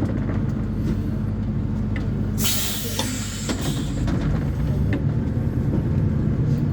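Diesel engine of a Neobus Thunder bus on an Agrale MA 10.0 chassis running. About two and a half seconds in there is a short, sharp hiss of released air, typical of the bus's air brakes, and about a second after it the engine note changes and grows stronger.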